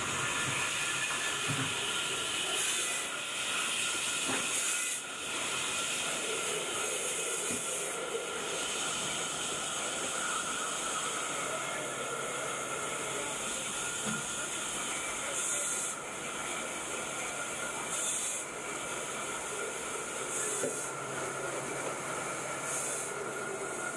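Steady drone and hiss of workshop machinery running, with no distinct strokes or rhythm.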